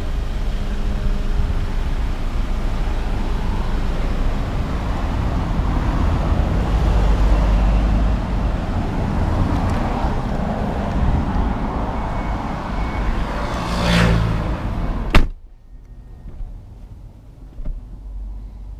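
BMW F90 M5's twin-turbo V8 idling through its Capristo exhaust, a loud, steady deep rumble. About 15 seconds in, a car door slams shut once and the engine sound drops to a much quieter, muffled rumble heard inside the cabin.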